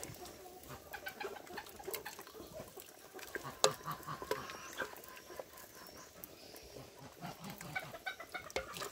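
Faint farmyard poultry calls, with scattered light clicks and knocks.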